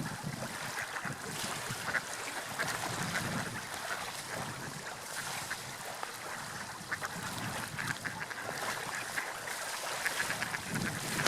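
Water lapping and splashing, a continuous wash dotted with small crackling splashes and low gurgles.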